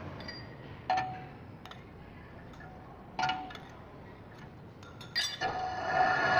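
Sharp metal clinks against a lathe's four-jaw chuck, twice with a short ring, while its jaws are adjusted with the spindle stopped. About five seconds in, the lathe starts up and runs with a steady hum.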